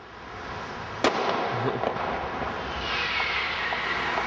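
Firecrackers and fireworks going off around: one sharp firecracker bang about a second in, then a steady hiss and crackle, with a falling whistle near the end.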